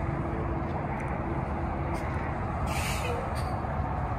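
Pickup trucks idling in a low, steady rumble, with a short hiss of air about three seconds in.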